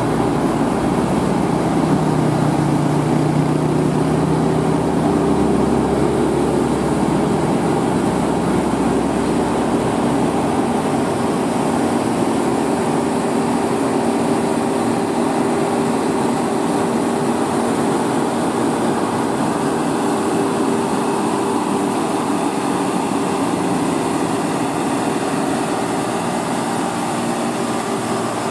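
Diesel engines of two loaded Hino 500 dump trucks pulling steadily, a continuous low drone whose pitch holds steady, with a lower engine note in the first few seconds.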